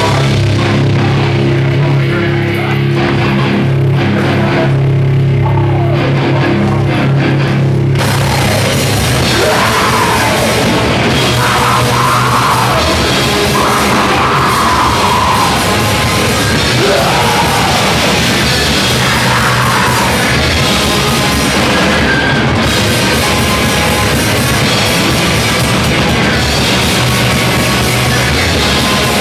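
Loud heavy rock music. For about the first eight seconds it is low, held bass notes with little treble, then the full band with drums and guitars comes in at once, with bending lead lines over it.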